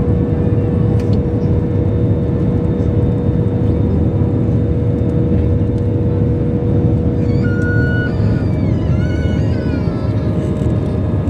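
Airbus A320-family airliner's underwing turbofan engines at climb power just after takeoff, heard inside the cabin over the wing: a loud, steady rumble with a held humming tone.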